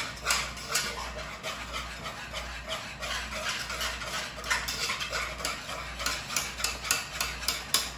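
A metal utensil stirring cake batter in a metal saucepan, clicking and scraping against the pot a few times a second in an uneven rhythm.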